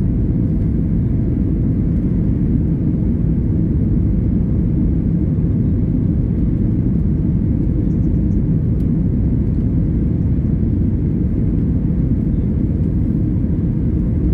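Steady low rumble of a Boeing 737's jet engines and rushing air, heard inside the cabin during the climb after takeoff.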